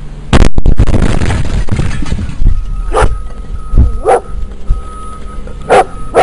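An explosion goes off about a third of a second in, very loud, and dies away over about two seconds. From about three seconds in a dog barks several times in short, separate barks.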